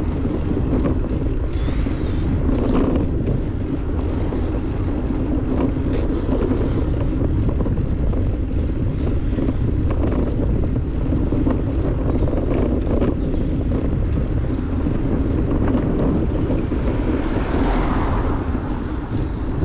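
Wind rushing over a GoPro Hero 9's microphone while riding a road bike, with steady rumble from the tyres on the road. Brief high chirps sound about four seconds in, and the noise swells near the end.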